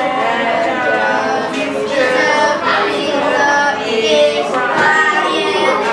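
Several boys' voices reading aloud together in a sing-song chant, with long held notes.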